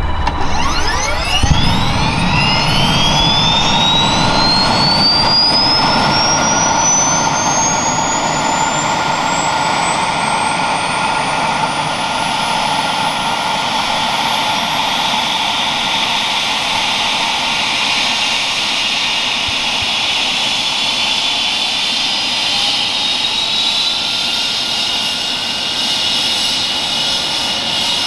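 Airbus EC135's Turboméca Arrius turboshaft engine starting up: a whine rising steeply in pitch over the first several seconds, then settling into a steady high turbine whine with several steady tones as the main rotor begins to turn.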